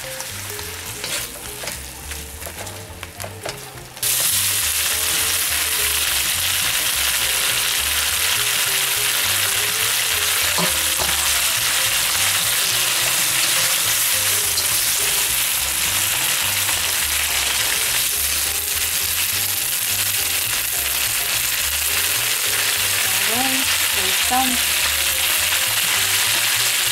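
Shrimp and bell peppers sizzling in sweet-and-sour sauce in a nonstick wok while a utensil stirs them. The sizzle jumps suddenly louder about four seconds in and then holds steady and loud.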